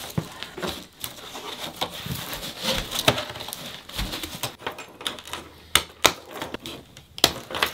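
Clear plastic wrapping on a boxed glass aquarium rustling and crinkling as it is pulled at by hand, with irregular clicks and brief squeaks from the foam packing inserts rubbing.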